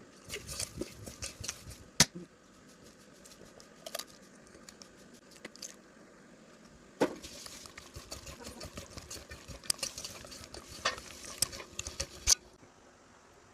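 A kitchen utensil clinking and scraping against cookware while stirring and mixing, in scattered bursts. Sharp clinks stand out about two seconds in and again about seven seconds in, and the sounds stop shortly before the end.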